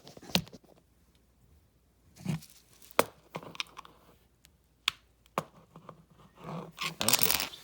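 Handling noise from a small plastic renewable dehumidifier and its hanger being fitted together by hand: a handful of sharp plastic clicks and knocks spread out, with rustling and scraping in between and a longer scraping rustle near the end.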